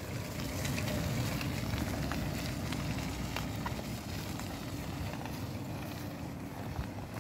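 Toyota Land Cruiser 70-series 4x4 driving away over a muddy dirt track: a low, rough rumble of engine and tyres that slowly fades as it pulls away.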